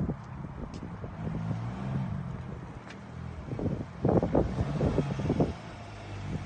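Can-Am Ryker three-wheeler's engine running as it rides around and back toward the microphone, its pitch rising briefly about two seconds in. Wind buffets the microphone loudly for a couple of seconds past the halfway point.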